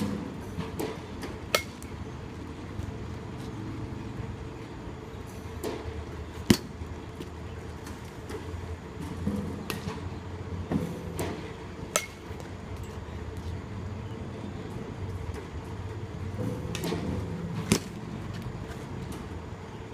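Bat hitting pitched balls: four sharp cracks about five seconds apart, with fainter knocks between them.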